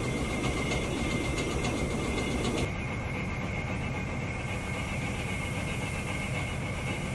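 Kenya Railways diesel locomotive 9303 running at low throttle: a steady engine rumble with a constant high whine above it.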